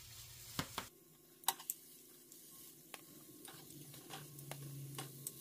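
Several light clicks and taps of a utensil against the flat-top of an electric griddle, over a faint sizzle of raw sausages just set down on the hot surface.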